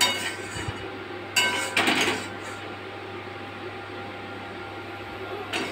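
A metal spoon clinks and scrapes against a steel wok in a short burst about a second and a half in. A steady low hum runs underneath.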